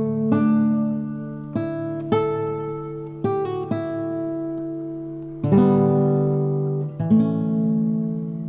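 Background music: acoustic guitar playing slow picked notes and chords, each one ringing out and fading before the next.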